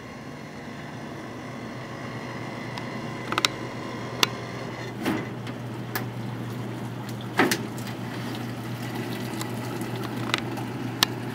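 Evaporative swamp cooler running with a steady low hum, while its louvered sheet-metal side panel is worked loose and pulled off with several sharp knocks and clatters.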